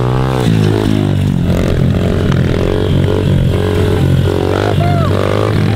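Small pit bike engine revving up and down in quick surges while the bike is held in a wheelie.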